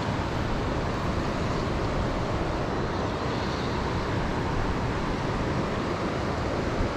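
Steady rushing noise of fast river water mixed with air moving past the microphone, even in level with no distinct events.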